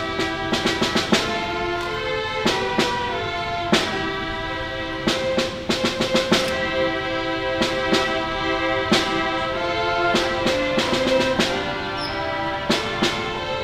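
School symphony orchestra playing: held brass and string chords with frequent sharp snare and bass drum strokes.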